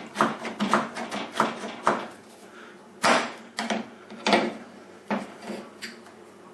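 A Peugeot 308 rear door handle being handled and worked after refitting: a run of sharp clicks and clacks, quick in the first two seconds, then a few louder, spaced knocks around three and four seconds in.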